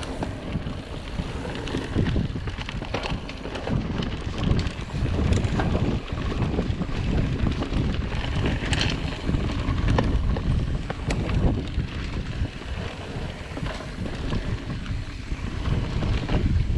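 Wind buffeting the microphone while a mountain bike rides down a dirt trail, with a steady low rumble and scattered sharp clicks and rattles from the bike over rough ground.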